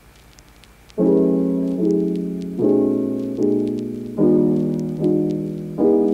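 Background piano music that comes in about a second in, with chords struck a little under a second apart, each fading before the next.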